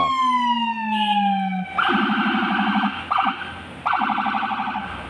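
Police escort car's electronic siren: a wail sliding down in pitch for under two seconds, then two rapid pulsing buzz blasts with a short blip between them.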